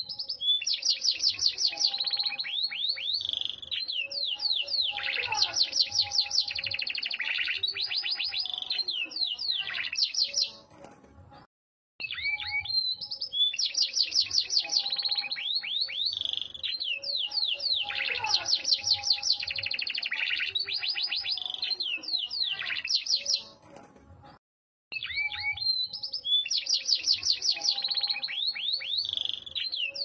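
Yorkshire canary singing: long, loud phrases of rapid trills and rolls, broken by two short silences about eleven and twenty-four seconds in, the same phrase repeating each time.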